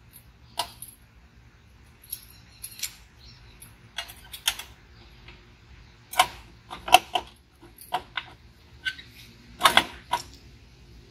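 Irregular sharp metallic clicks and clinks of bolts and engine parts being handled and set in place, about a dozen taps with a faint low hum underneath.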